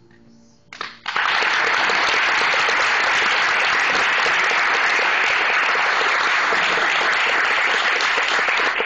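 Audience applauding: clapping breaks out suddenly about a second in and holds steady and loud.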